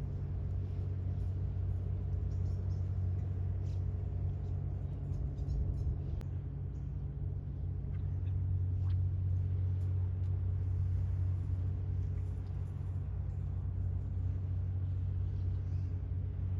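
Steady low outdoor rumble with a few faint scattered ticks.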